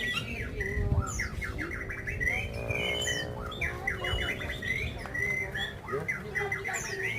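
Several caged white-eyes (pleci) singing at once in a contest, a dense overlap of fast, high twittering trills and chirps.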